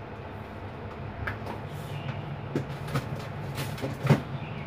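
Kitchen handling sounds at a fridge-freezer: a few light knocks and clicks, then a louder knock near the end as the freezer door is opened, over a steady low hum.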